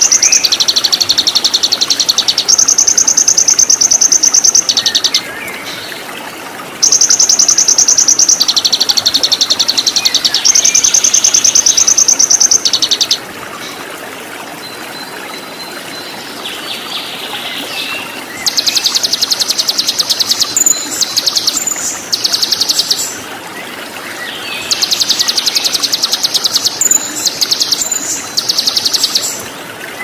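Songbird singing long, rapid, high-pitched trills, each phrase lasting several seconds with short gaps between, over the steady rush of running water.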